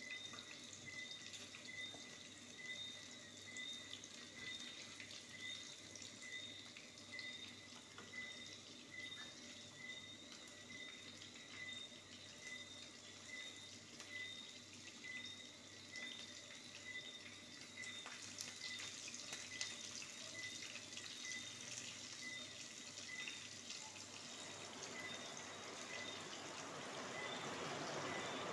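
Chicken wings frying in hot oil in a frying pan: a steady sizzle full of small crackles and pops, getting louder near the end. A faint high tone pulses evenly underneath.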